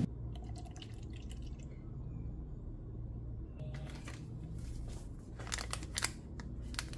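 Small clicks and crinkles of a paper instant-coffee stick and a plastic cup being handled on a counter, with a cluster of sharper ones about five and a half seconds in, over a low steady hum.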